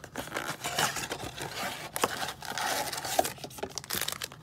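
Cardboard trading-card blaster box being torn open and its wrapped packs slid out: irregular tearing, scraping and crinkling with many small clicks.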